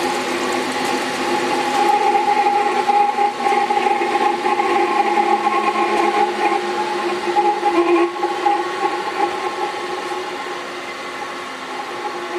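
Storm Vulcan 15A crankshaft grinder running, its grinding wheel giving a steady whine, with the rasp of a diamond radius dresser being passed across the wheel's edge to form the corner radius. After about eight seconds the sound eases and gets somewhat quieter.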